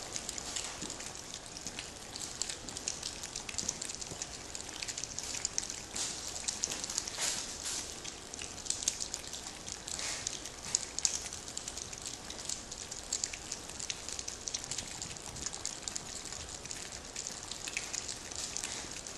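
A litter of puppies eating and moving about in pine-pellet litter: a dense, steady crackle of small clicks and smacks.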